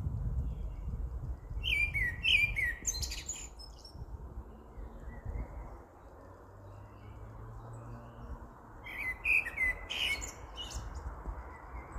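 A songbird singing two short phrases about six seconds apart, each a quick run of downward-slurred whistled notes with higher twittering, over a low rumble.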